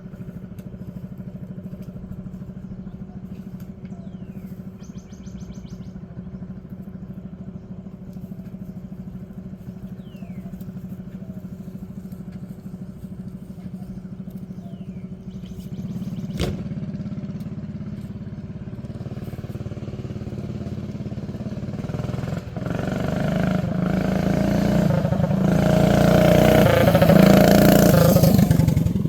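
A Predator 212cc single-cylinder four-stroke engine on a mini bike, running steadily at first, then growing steadily louder from about halfway and loudest just before the end, where it drops off suddenly. A single sharp click sounds a little past halfway.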